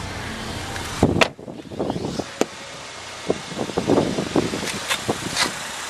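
Wind blowing across the microphone, with a run of irregular thumps and clicks, the loudest about a second in.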